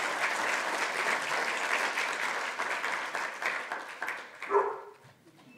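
Audience applauding, the clapping dying away about four and a half seconds in. As it fades there is one short, loud pitched squeak.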